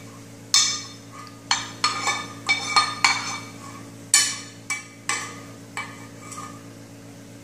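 A metal spoon scraping and knocking the inside of a metal saucepan to get the last raspberry coulis out into a mesh strainer: about a dozen sharp clinks over six seconds, each with a short metallic ring.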